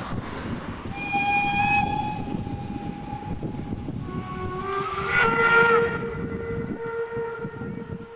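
Steam locomotive whistle blown twice. First comes a short shrill blast about a second in. Then, around four seconds in, a longer, lower, several-toned blast rises in pitch as it opens, swells, and fades away, all over the steady rumble of the moving steam train.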